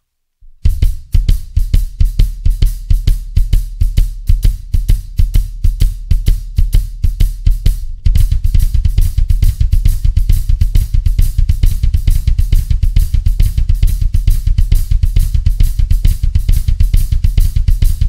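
Drum kit played up to speed: a fast Swiss Army triplet ostinato on double bass drum pedals, with a shuffle played over it by the hands so that the right hand lines up with the right foot. It starts about half a second in.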